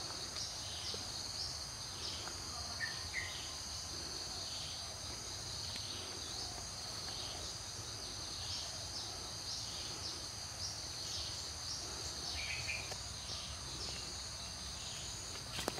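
Insects, likely crickets, keep up a steady high-pitched drone. Short falling notes repeat about once a second, and a bird gives a few brief chirps. A couple of sharp clicks come right at the end.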